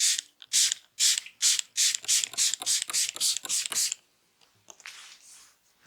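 Hands rubbing vigorously through hair during a head massage, about a dozen quick, hissy strokes that come faster over the first four seconds, then a few fainter strokes near the end.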